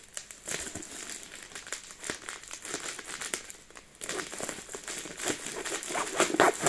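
Parcel packaging being opened, plastic crinkling and tearing, with a busier, louder stretch over the last few seconds.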